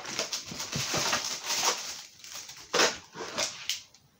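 Plastic packaging bags crinkling and rustling as they are handled: a dense crackle for about two seconds, then a few separate crackles.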